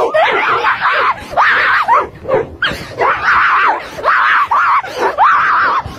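A person screaming in repeated high-pitched shrieks that rise and fall, loud throughout, with a short break a little past two seconds.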